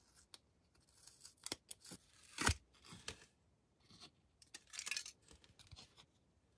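Hands handling a rigid plastic part, making irregular scraping and crinkling rustles and small clicks, with one sharp click about two and a half seconds in.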